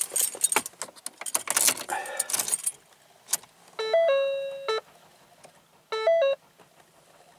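Car keys jangling and rattling at the ignition, then the 2012 Ford Focus's dashboard warning chime sounds twice, about four and six seconds in, as a short run of electronic tones. With the battery dead, the car will not start, and the chime goes with its starting system fault warning.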